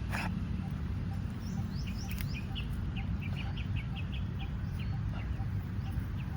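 A bird calling in a quick run of short chirps, about four a second, for a few seconds, with a few higher rising notes as it starts, over a steady low rumble.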